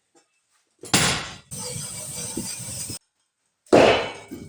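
Metal being worked in a steel workshop: a sharp ringing clank about a second in, then a second and a half of steady hissing crackle that cuts off suddenly, then another ringing clank near the end.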